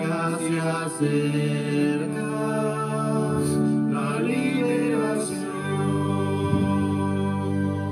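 Church music: the closing phrases of an Advent hymn, with singing over long held instrumental chords.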